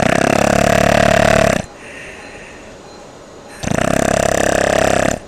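Person snoring with the uvula vibrating: two long snores of about a second and a half each, with a fast flutter, and a quieter breath between them.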